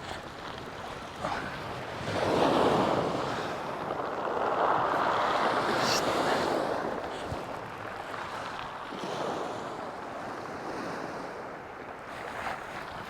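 Sea waves washing onto the shore, with two loud surges about two seconds in and from about four to seven seconds in, and wind on the microphone.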